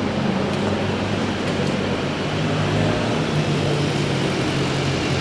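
Vehicle engines running at low speed as cars and a motorcycle drive slowly across a show stage, a steady low hum. The motorcycle engine grows louder through the second half.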